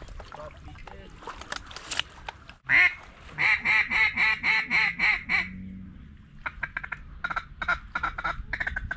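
Duck call blown in mallard-hen quacks, after some rustling: a loud run of about eight evenly spaced quacks. After a short pause comes a quicker string of shorter, quieter quacks.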